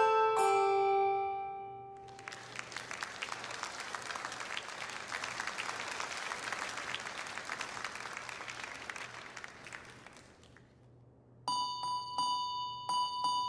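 Handbells ringing a few notes that die away over the first second or two, then about eight seconds of faint crackling hiss that fades out. A second or two before the end, clear bell notes start up again.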